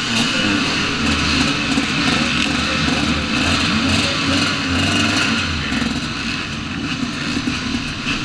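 Many dirt bike engines running and revving together at once, a dense, wavering mix of engine notes.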